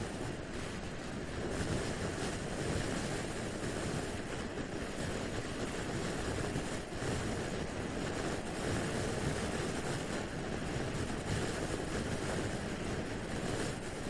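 Steady wind rush over the microphone mixed with tyre and road noise from a motor scooter cruising at motorway speed.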